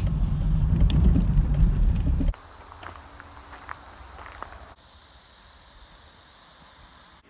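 Low rumble of the Peugeot 306 XSi driving, with a steady high insect buzz over it. About two seconds in the rumble cuts off, leaving only the insects buzzing steadily, with a few faint ticks.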